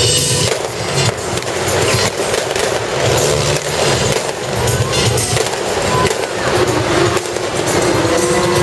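Loud continuous noise with scattered clatter, over show music with a steady low beat.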